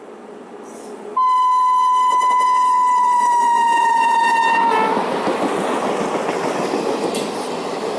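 High-tone horn of a WAP-7 electric locomotive blown in one long blast of about three and a half seconds, starting about a second in, its pitch sagging slightly and dropping as it cuts off. Then the noise of the train running past.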